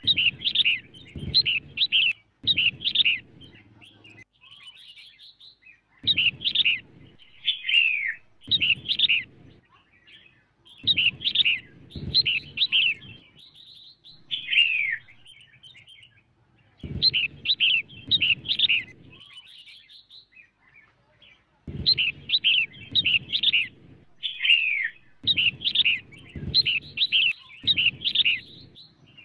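Female red-whiskered bulbul singing in short chattering phrases of bright, slurred notes, each phrase one to two seconds long with pauses of a second or more between them. A low rumble sounds under each phrase.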